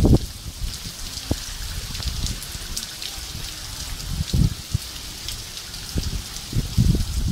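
Hailstorm with heavy rain: a steady hiss of rain, many sharp ticks of hailstones striking, and scattered dull thumps.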